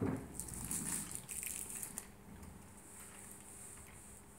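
Candy wrappers crinkling faintly as they are handled, mostly in the first two seconds, after a brief low sound at the very start.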